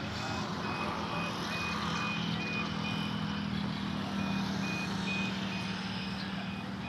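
Steady low motor hum that swells in the middle and eases off near the end, with a short high electronic beep repeating two or three times a second, like a reversing alarm.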